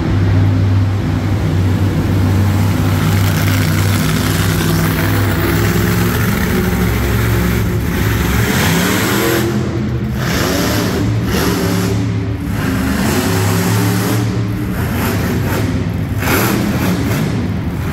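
Monster truck engine running hard and revving, the throttle lifting and opening again several times in the second half.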